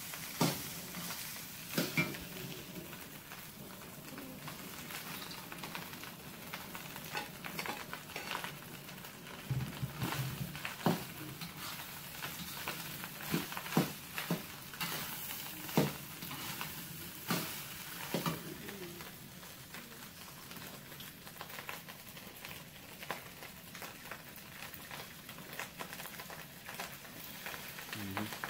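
Rice frying in a wok with a steady sizzle, while a metal ladle stirs and flips it, scraping and clinking against the pan in irregular knocks.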